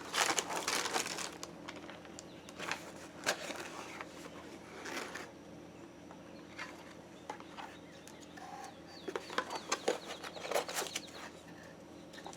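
A cardboard shipping box and its packing being wrestled open by hand: irregular crackling, tearing and clicking, heavier near the start and again in the last few seconds.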